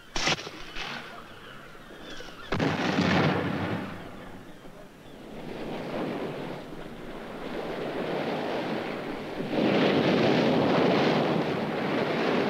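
Rough sea in a storm: waves crashing in sudden surges, the first just after the start, a bigger one about two and a half seconds in, and a long loud rush of breaking water near the end.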